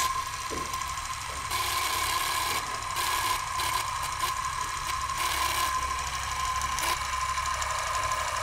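Film projector sound effect: a steady mechanical whirr and rattle with a constant high hum, starting abruptly.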